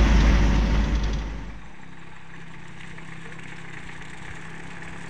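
Mitsubishi L300 pickup driving, first as a loud low rumble of engine and rough road heard inside the cab. After about a second and a half it drops to a quieter, steady engine hum of the pickup heard from the roadside.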